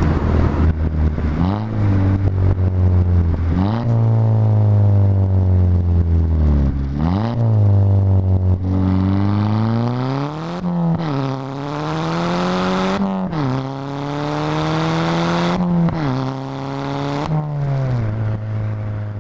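Exhaust note of a tuned, turbocharged VW MkV GTI four-cylinder with a catted downpipe and resonator delete, heard close at the tailpipe. The car is accelerating: the revs climb, then fall back sharply with each gear change, several times over.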